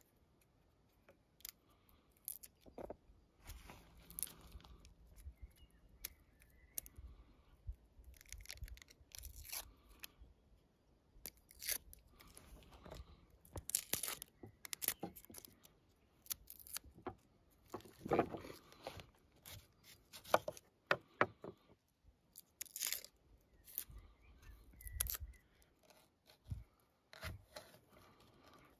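Dry, papery onion skin crackling and tearing as it is peeled off by hand, in short irregular rips, with small scrapes of a knife against a wooden cutting board.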